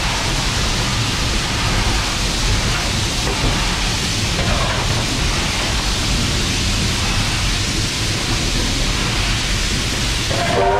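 Steady rushing hiss of steam and running noise in the cab of NSW C38 class steam locomotive 3801. Just before the end, the locomotive's multi-chime steam whistle starts to sound.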